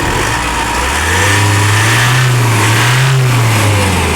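Isuzu MU-X turbodiesel engine revved up about a second in, held for a couple of seconds and let back down, with the loud turbo whistle rising with the revs. This is the turbo noise whose cause has not been found.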